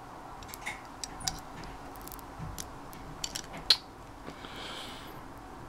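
A series of sharp plastic-and-metal clicks and taps as a wireless keyboard's USB receiver is pushed at the USB socket of a Samsung USB-to-microUSB adapter and fails to go in. The loudest click comes about three and a half seconds in, followed by a brief soft rustle.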